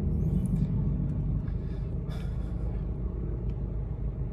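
Steady low rumble of a car's engine and road noise heard inside the cabin of a moving car.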